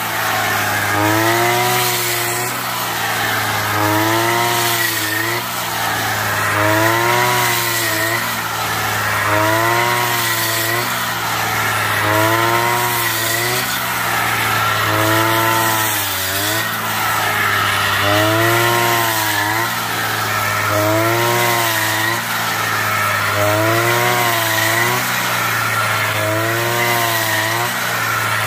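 Backpack brush cutter with a homemade rice-cutting cage attachment, its small engine running steadily as it is swept through standing rice stalks. The engine note rises and falls in pitch about every two and a half seconds.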